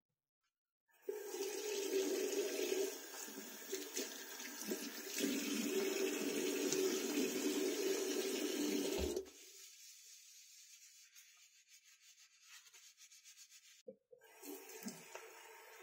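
Bathroom tap water running from a single-lever mixer into a ceramic washbasin, splashing over gloved hands as they are rubbed together. It starts about a second in and cuts off suddenly about nine seconds in as the tap is shut; near the end the water runs again briefly.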